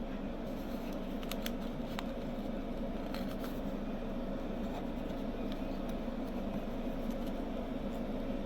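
A few light clicks and taps of the laptop's plastic parts being handled while the new keyboard's ribbon cable is seated in its connector, over a steady low hum.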